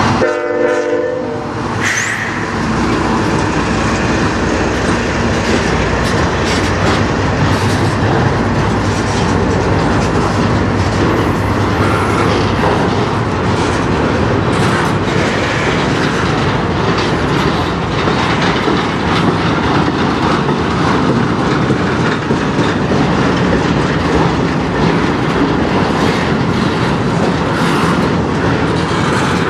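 Freight train rolling past at close range: the steel wheels of loaded flatcars rumble and clatter steadily over the rails. There is a short pitched tone near the start as the last diesel locomotive goes by.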